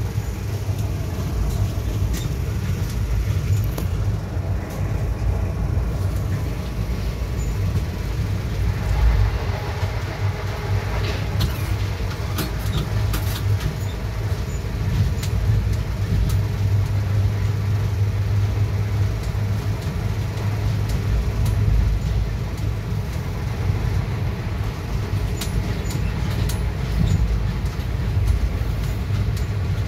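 Steady low rumble of a passenger express train running at speed, heard from inside the coach, with irregular sharp clicks and rattles over the top.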